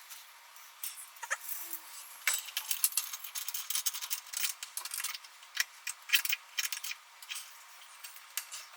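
An irregular run of small, sharp clicks, taps and rattles from microphone kit parts being handled and fitted together during setup.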